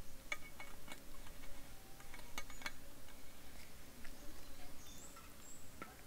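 Scattered light clicks and ticks over faint outdoor background, with a few short high bird chirps about five seconds in.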